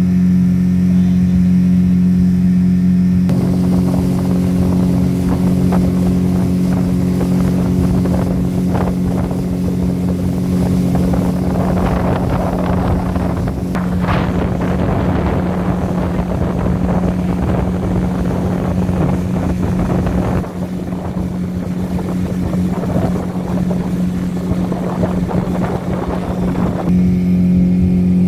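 Speedboat engine running at a steady, even pitch while underway. From about three seconds in until near the end, a rough rushing noise of wind on the microphone lies over it.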